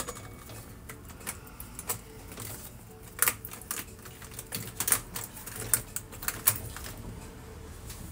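Irregular sharp clicks and knocks, roughly one or two a second, over a low steady hum.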